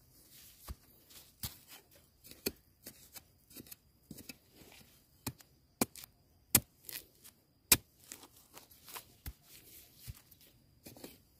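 Dry bamboo leaves and stalks crackling and snapping while bamboo shoots are being harvested: a string of irregular sharp cracks, some louder than others, over a faint rustle.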